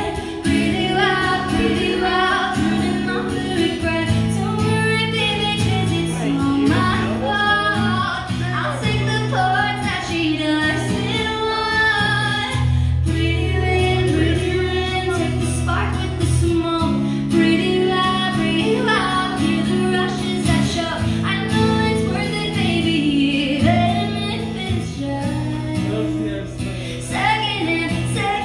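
A woman singing lead over a live band's music, with sustained low chords underneath the melody.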